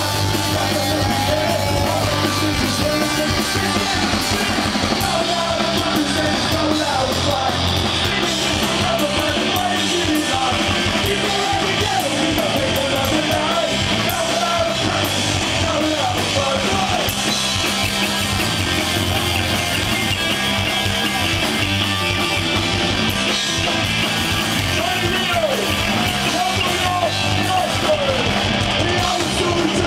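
Punk rock band playing live: electric guitars, bass and drums with a lead vocal, recorded from among the audience.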